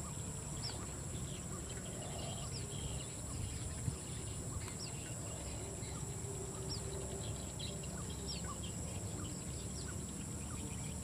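Steady high insect drone of a wet field, with short, high, falling chirps about once a second over a low rumble. A small click about four seconds in.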